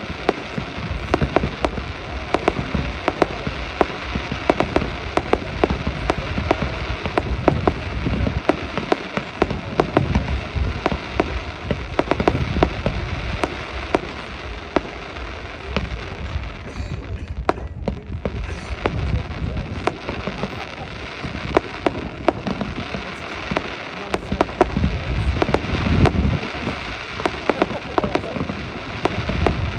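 Fireworks display going off: rapid, overlapping bangs and crackling, with a brief lull a little past halfway.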